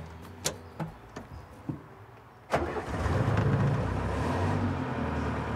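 Mercedes-Benz 'DüDo' van engine being started: a few light clicks of the key and dash switch, then about two and a half seconds in the engine catches and runs steadily at idle.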